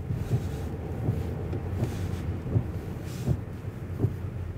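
Car driving, heard from inside: a steady low engine and road rumble, with short soft thumps every half second to a second.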